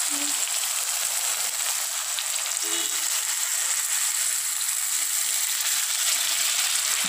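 Chicken leg pieces in tomato masala sizzling steadily in a steel kadai on a gas stove.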